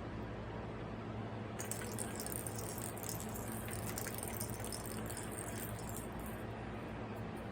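A plastic cat toy with balls rattling and clicking as it is played with, a run of small rattles from about a second and a half in until near the end, over a steady low hum.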